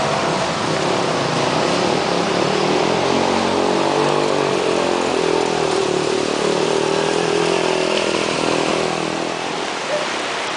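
A motorcycle engine riding through floodwater, its pitch swelling and easing as it approaches and passes, over a steady rush of water.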